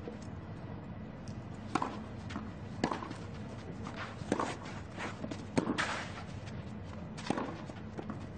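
Tennis rally on a clay court: five sharp racket-on-ball hits, one every second or so, with fainter knocks between them over a steady background hiss.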